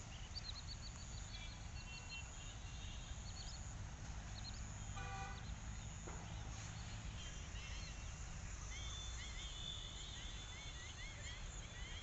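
A vehicle horn gives one short toot about five seconds in, over a low steady background rumble. Faint bird calls come in quick series of high chirps near the start and again through the second half.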